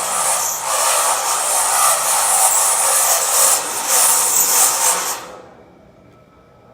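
A loud power tool runs steadily, then stops abruptly about five seconds in.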